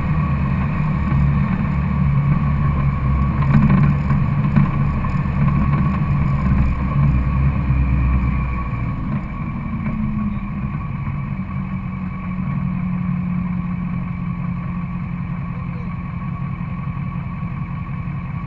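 Duramax diesel pickup engine running near idle, heard close up from the hood: a steady low rumble that eases down to a quieter drone about halfway through.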